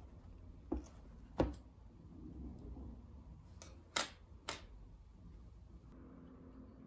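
Objects set down on a wooden tabletop: a few light knocks and taps from a hardcover sketchbook and paintbrushes being placed. Two knocks come about a second in, then three close together around four seconds in.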